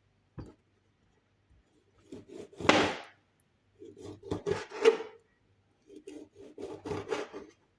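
Knife sawing through a lemon on a cutting board: three bouts of quick back-and-forth strokes, about a second each, after a single tap near the start.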